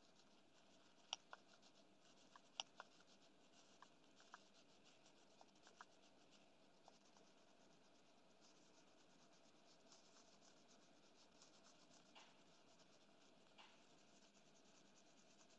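Near silence of a small room, broken by faint, scattered small clicks and taps in the first half and a soft scratching or rubbing near the end.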